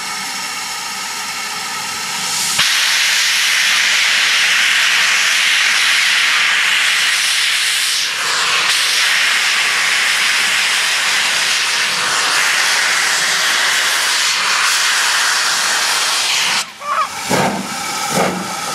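BR Standard Class 5 4-6-0 No. 73129, a Caprotti valve-gear steam locomotive, finishes a steady whistle blast about two and a half seconds in. It then starts away with its cylinder drain cocks open, giving a loud continuous hiss of steam. Near the end the hiss breaks into sharp exhaust beats about twice a second as the engine gets moving.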